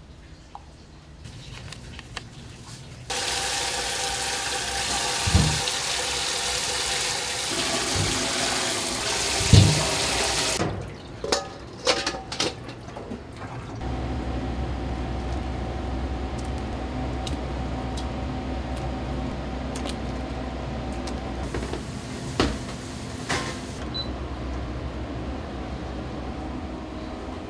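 Water running hard from a kitchen tap into a sink or pot for several seconds, then a few clinks of metal or dishes. After that, quieter running water with a low steady rumble.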